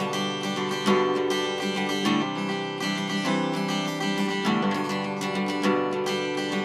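Background music: an acoustic guitar strummed in steady chords.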